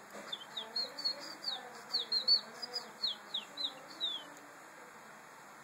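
A bird singing: a quick run of high chirps and whistles, many sliding down in pitch, that stops about four seconds in.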